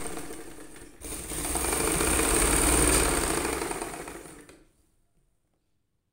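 Small sewing machine running, stitching a thick frill onto a frock. It dips briefly about a second in, then runs again louder and stops about four and a half seconds in.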